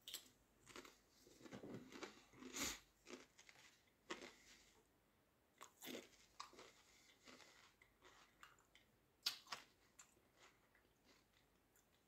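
A person chewing a crisp (potato chip) with irregular crunching bites, loudest in the first few seconds and thinning out to scattered clicks toward the end.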